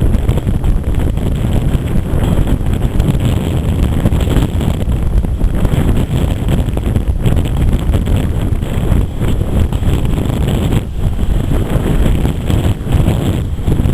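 Wind buffeting the microphone: a loud, steady low rumble with no clear rhythm.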